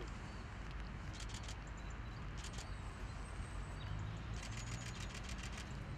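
Outdoor background noise with a bird's chirps: a few short high calls early on, then a rapid chattering run of about ten notes about halfway through.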